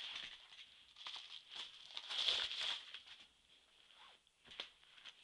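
Packaging being handled and opened: irregular rustling and crinkling of paper or plastic with a few light clicks and knocks, busiest a couple of seconds in and quieter near the end.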